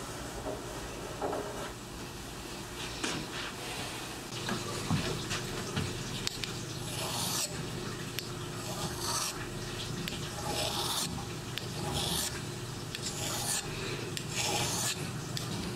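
A small blade being honed by hand on a dark sharpening stone: short rasping scrape strokes, about one or two a second, coming in about six seconds in, over a steady low workshop hum.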